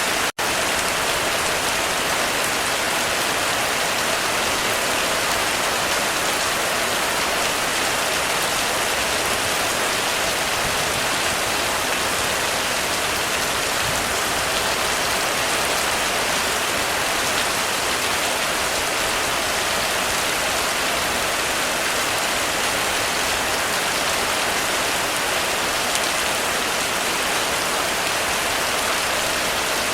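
Heavy rain falling steadily on a roof, a dense, even hiss with no thunder. The sound drops out for an instant just after the start.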